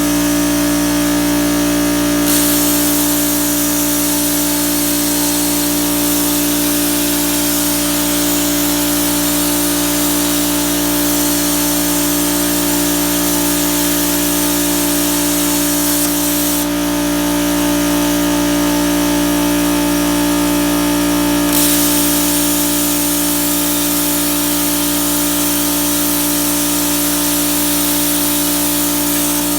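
CNC plasma cutter cutting sheet metal: a loud hiss of the plasma arc over a steady machine hum. The hiss comes up a couple of seconds in, stops for about five seconds past the middle, then starts again.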